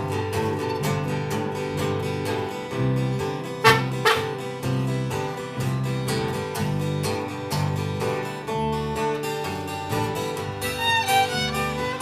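Live acoustic country band playing an instrumental intro: guitar playing a riff with fiddle, no singing. A sudden loud sound stands out a little under four seconds in.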